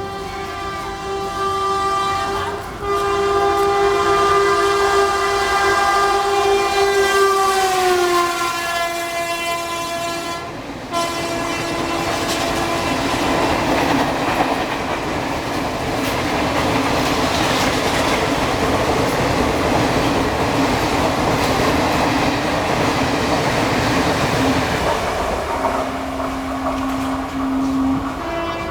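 WAM4 electric locomotive's air horn sounding one long honk, its pitch dropping about 8 seconds in as it passes. Then the steady rolling clatter of the express coaches going by, with wheels clicking over rail joints. A shorter, lower horn note sounds near the end.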